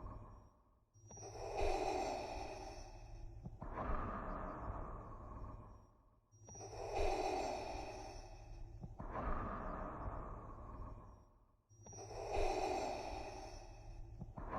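Darth Vader's mechanical respirator breathing, the sound made by breathing through a scuba regulator: slow, even inhale and exhale strokes of about two and a half seconds each. A full breath comes about every five seconds, about two and a half cycles here, with a short gap between strokes.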